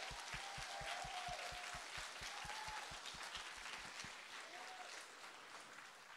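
Audience applauding, the clapping slowly fading out toward the end.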